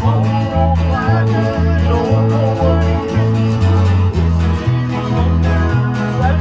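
Acoustic and electric guitars playing a country tune together, with strummed chords over a strong bass line that steps back and forth between low notes about twice a second.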